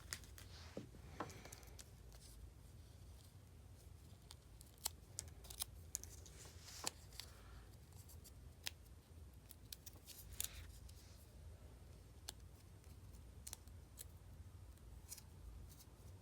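Faint, scattered small clicks and a few short scrapes from handling nail polish strips and the small tools used to apply and trim them, over a low steady room hum.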